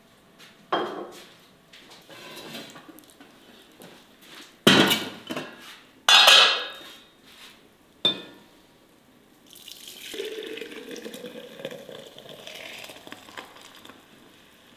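Enamel pot and ceramic crockery being handled, with a few sharp knocks and clinks, then milk poured from an enamel pot into a ceramic jug: a steady pour whose pitch rises slightly as the jug fills.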